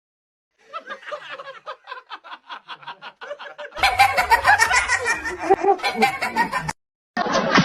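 A person laughing in quick repeated chuckles, which grow louder about four seconds in and cut off suddenly near the end.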